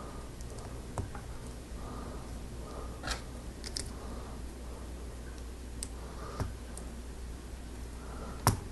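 Plastic LEGO pieces being handled and snapped together: a handful of scattered sharp clicks, the loudest near the end.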